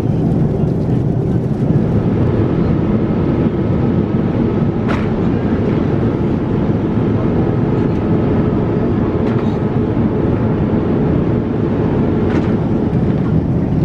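Steady cabin noise of a Boeing 787-9 airliner in flight: an unbroken low roar of airflow and engines, with a few faint clicks over it.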